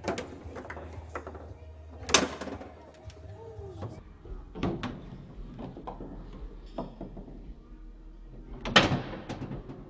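Table football (foosball) in play: sharp clacks of the ball being struck by the rod-mounted men and hitting the table walls, with lighter knocks between. The two loudest hits come about two seconds in and near the end.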